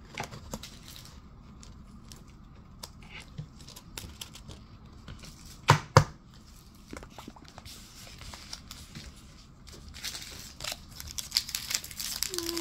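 Foil booster pack wrapper being handled, then torn open and crinkled, the crinkling dense in the last few seconds. Scattered light clicks of handling run throughout, with two sharp clicks close together about halfway through.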